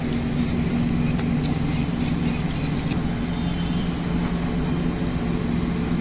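Steady low machine hum of kitchen ventilation or cooling equipment. Over it, for the first three seconds or so, a wire whisk lightly ticks and scrapes against a ceramic bowl of yogurt dip, then stops.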